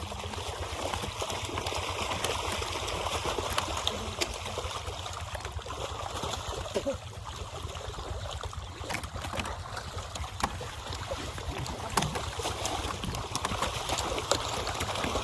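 Pond water sloshing and splashing continuously as fish are hauled in a net, with scattered sharp splashes and clicks and a steady low rumble underneath.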